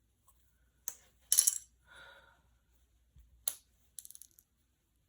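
Small hard plastic and metal kit parts clicking and clattering as they are handled and set down, in a few separate sharp clicks and short rattles.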